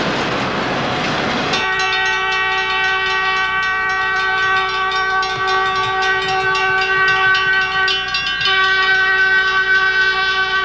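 Freight cars rolling past, then about a second and a half in a locomotive's multi-chime air horn starts, held as a steady chord with a brief break about eight seconds in, sounding for a grade crossing.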